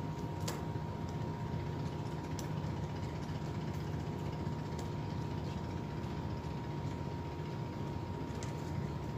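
Steady low hum of a large ship's engines and machinery, with a faint steady whine above it and a few faint clicks.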